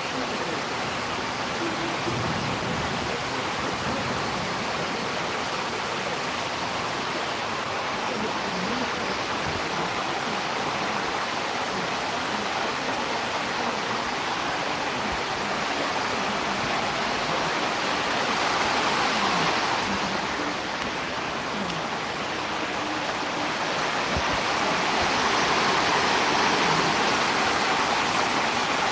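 Storm wind rushing in a steady noise that swells in gusts, once about two-thirds of the way through and again near the end.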